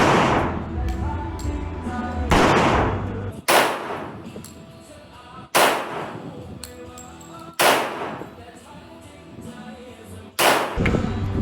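Pistol fired six times at a shooting range, single shots roughly two seconds apart, each echoing briefly. Background music plays under the first and last shots.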